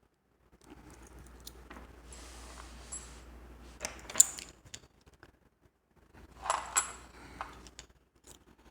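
Small metal clicks, scrapes and clinks of a lock pick working at the pins of a Mul-T-Lock Junior dimple lock, with a couple of sharper metallic rings about four seconds in and again near seven seconds.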